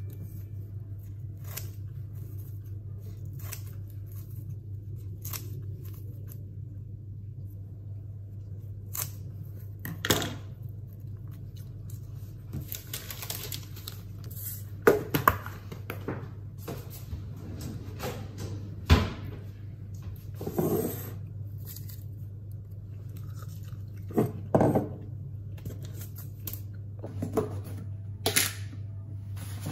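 Scissors snipping through crisp dried nori sheets, with scattered crackles and sharp clicks as the pieces and the scissors are handled on a wooden counter, over a steady low hum. Near the end a plastic food-container lid clicks as it is lifted off.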